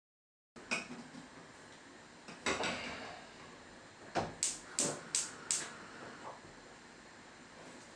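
A stainless steel pot and its lid clattering on a gas hob, with a quick run of five sharp metallic clinks about halfway through.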